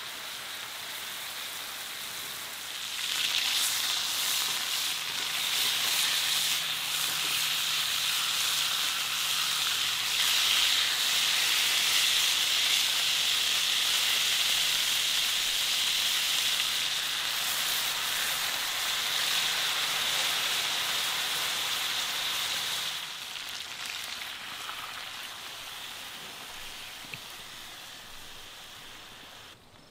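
Chicken quarters sizzling in beer and fat in a hot cast-iron skillet. The sizzle swells about three seconds in, holds steady, then dies down over the last several seconds.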